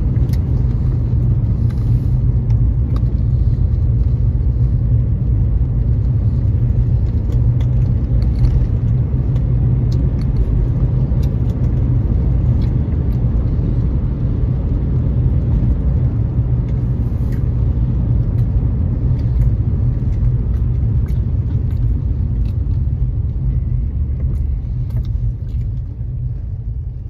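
Road noise heard from inside a moving car: a steady low rumble that eases off near the end.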